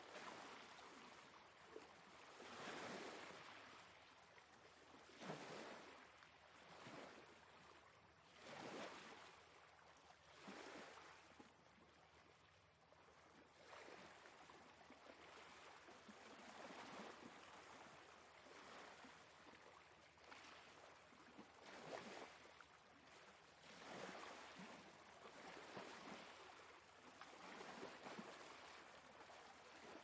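Small sea waves breaking and washing up a sandy beach, a faint, steady surf that swells in a new surge every two to three seconds.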